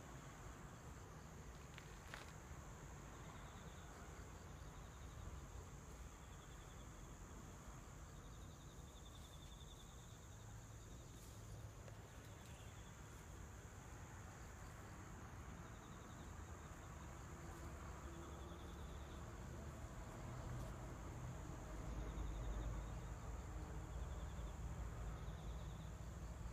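Faint crickets chirping: short pulsed trills repeating every couple of seconds over a steady high-pitched hiss. A low rumble grows near the end.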